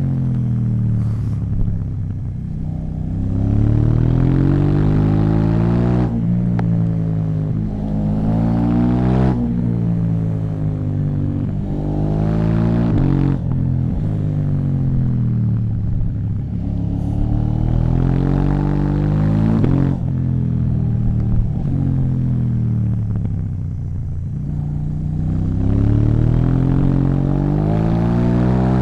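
KTM 790 Duke's parallel-twin engine through an Akrapovic exhaust, its revs climbing and falling again and again, several climbs ending in a sudden drop in pitch.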